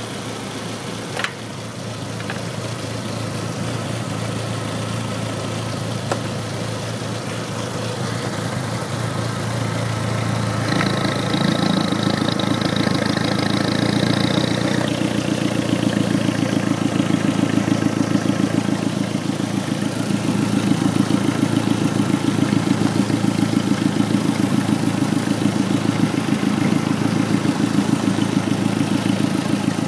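Car engine idling roughly, with an uneven pulsing beat; the owner suspects the secondary air injection system is causing the rough idle. About ten seconds in the idle grows louder and more pulsing, with a high whine for a few seconds.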